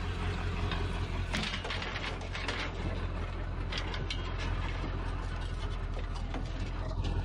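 Scrap metal being handled and moved, giving an irregular run of light clicks and rattles over a steady low hum.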